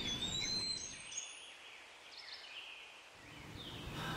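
Outdoor background noise with a few birds chirping, one gliding chirp near the start. The background fades down about a second in and comes back up near the end.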